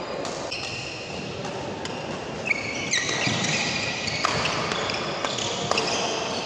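Badminton rally: a string of sharp racket strikes on the shuttlecock, mixed with high squeaks of players' shoes on the court floor.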